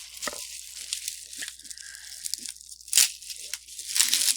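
Hands handling a repaired iPhone flex cable and phone parts on a workbench: scattered small clicks and rustling, with two sharper clicks about three and four seconds in.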